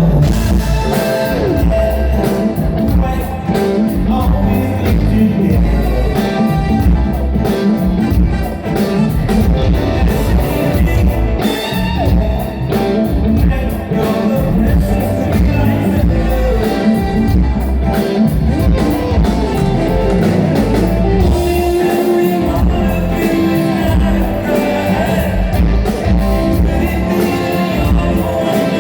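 Live rock band playing a song at full volume, with drums, bass, electric guitar and lead vocals.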